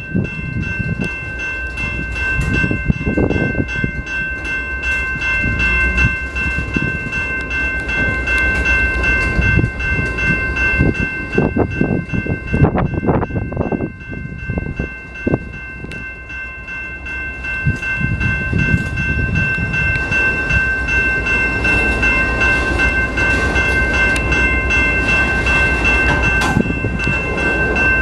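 Canadian Pacific autorack freight cars rolling past: a steady rumble with the irregular clatter of the wheels on the rails, easing a little about halfway through. A steady high-pitched ringing tone runs over it.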